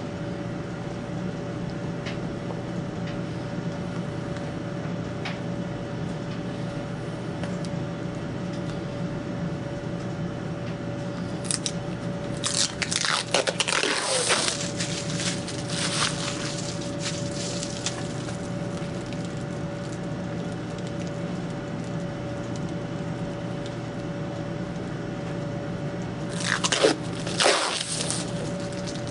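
Protective plastic film being peeled off a clear acrylic disc, crinkling and crackling in two spells, over a steady background hum.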